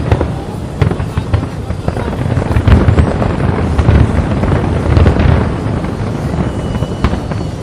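Fireworks display: a run of sharp bangs and crackles at irregular intervals over a continuous low rumble of booming shells.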